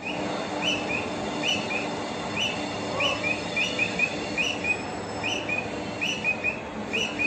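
Squirrel calling: a long run of short, sharp chirps, each a higher note quickly followed by a lower one, repeating a little under twice a second over steady background hiss.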